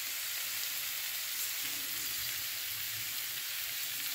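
Cabbage and vegetables frying in a cast-iron skillet: a steady sizzle.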